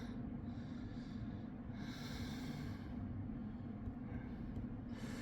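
A person breathing audibly near the microphone, about three slow breaths, over a faint steady low hum.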